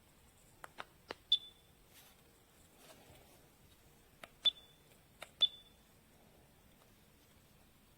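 MiLESEEY laser distance meter in use: plastic button clicks, each followed by a short high-pitched beep as a measurement is taken, three beeps in all.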